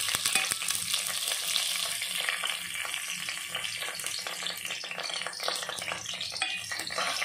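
Mustard seeds, cumin and white urad dal frying in hot oil in an aluminium pressure cooker: a steady sizzle with many small pops and crackles as the seeds splutter, the tempering stage of the dish.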